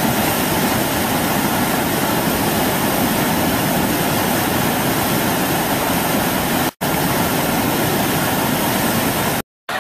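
Loud, steady rushing of a flash-flood torrent. It cuts out for an instant about two-thirds of the way through and again just before the end.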